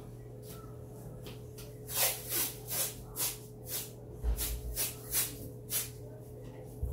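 Blue painter's tape being pulled off the roll and pressed down onto a granite countertop: a series of about eight short tearing pulls in under four seconds, starting about two seconds in, over a steady low hum.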